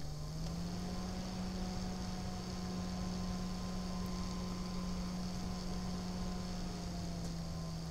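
EK-Vardar F4-120ER 120 mm double-ball-bearing PC fan running at about 50% PWM speed: a steady low hum over a soft airflow hiss. A faint higher tone rises a little in the first second and then holds steady.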